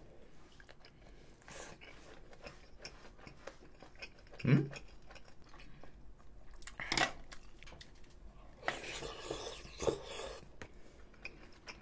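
Close-miked chewing of a dumpling and rice soup, with light clicks of chopsticks against the bowl, a short hummed "mm" about halfway through, and a longer slurp from the bowl near the end.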